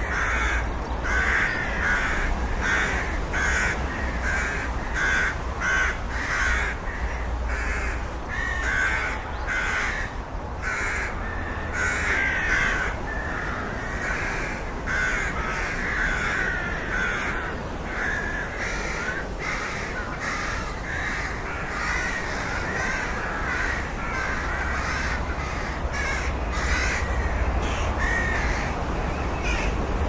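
Rooks cawing: harsh calls repeating about twice a second, some overlapping, over a low steady rumble.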